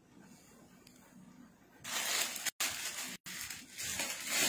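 Clear plastic clothing packets crinkling as they are handled and moved, starting about two seconds in. The sound cuts out twice, briefly.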